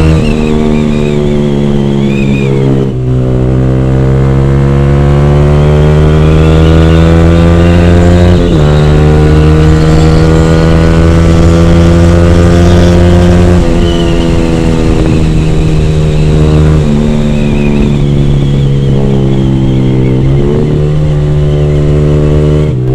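Yamaha R15 V3's single-cylinder engine through a D'Crow Blaxton GP carbon aftermarket exhaust, ridden under power. The note climbs in pitch and drops sharply at each of several gear changes.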